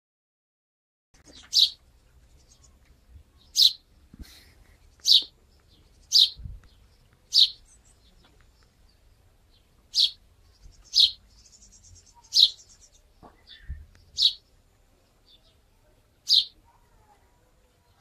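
European robin giving short, sharp single calls, about eleven of them, roughly one every one to two seconds, starting about a second in.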